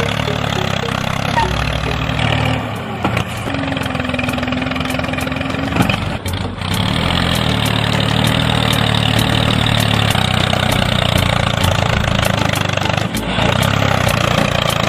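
A small engine or motor running steadily, dropping briefly a few times.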